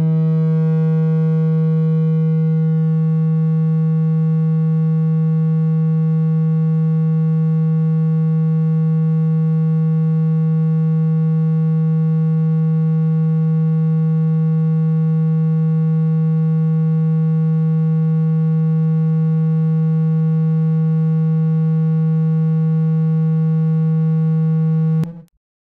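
A single steady, low, slightly buzzy electronic tone: a water-ejection tone meant to vibrate water out of a phone speaker. It holds one unchanging pitch and cuts off suddenly near the end.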